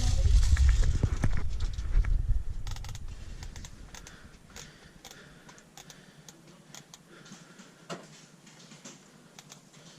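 A low rumble on the microphone that fades out over the first three to four seconds, then scattered sharp clicks at irregular times.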